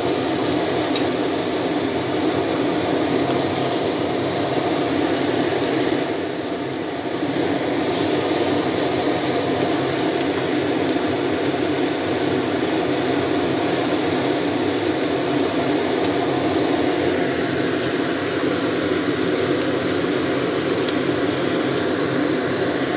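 Fish fillets sizzling and crackling in hot oil in a wok, a steady dense frying sound with a brief slight drop about six seconds in.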